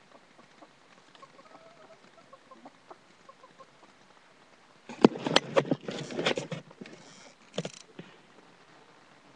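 Chickens clucking softly, then a burst of loud knocks and scuffling right at the microphone lasting about a second and a half, with one more knock a little later.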